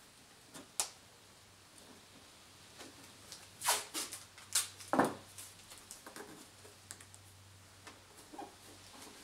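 Hands working on a wooden shelf with blue painter's tape: a few short rips of tape and light taps and clicks, the loudest cluster about four to five seconds in, ending in a dull knock.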